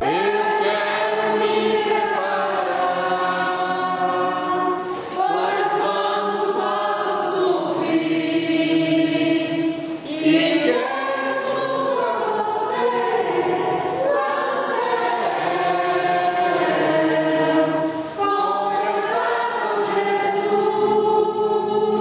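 A group of voices singing together in chorus, long held notes in phrases with a few short breaks between them.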